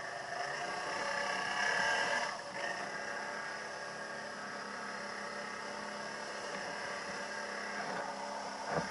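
ATV engine running steadily while riding, a little louder about a second or two in, with a short knock near the end.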